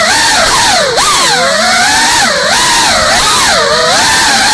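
GEPRC Cinelog 35 FPV cinewhoop's brushless motors and ducted propellers whining loudly. The pitch keeps dipping and climbing again as the throttle is worked through fast manoeuvres.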